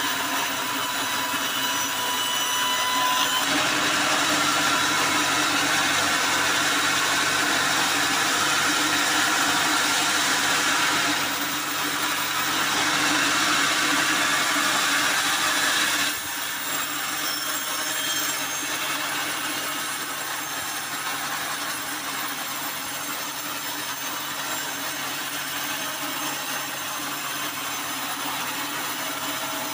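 Band sawmill blade cutting through a hard acacia log, a steady hissing, whining saw noise. It drops suddenly to a quieter steady run about halfway through.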